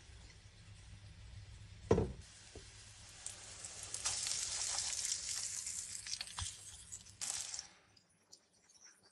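Cabbage and carrot fritters sizzling in hot oil in a nonstick frying pan as they are turned over with a silicone spatula. The sizzling swells about three seconds in and drops away sharply near the end. A single sharp knock comes about two seconds in.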